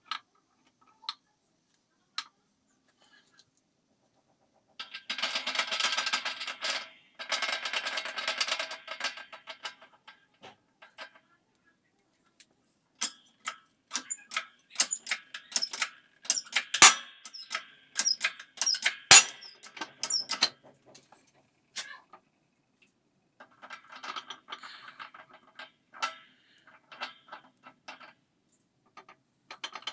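Intermittent clicks, clinks and knocks of tools and metal parts being handled during repair work, with a stretch of dense rattling about five seconds in and a busier run of sharp clicks in the middle.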